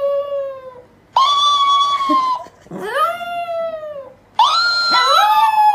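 Chihuahua howling: a string of about five long drawn-out howls, each rising and then sliding down in pitch, with short breaths between them.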